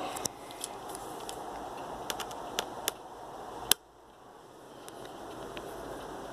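Scattered light clicks and taps of a small screwdriver being fitted to a keyboard screw on a Dell Latitude laptop, over a steady background hiss. One sharper click comes a little under four seconds in, after which the hiss drops away and slowly builds back.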